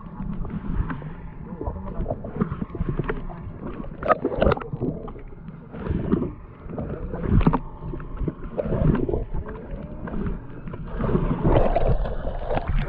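Noise aboard a small fishing boat at sea: water moving against the hull, with irregular knocks and clatter on deck.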